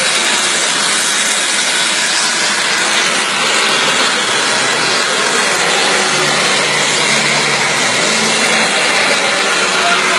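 Aircraft engine running with a steady, loud rushing noise, even throughout with no rise or fall in pitch.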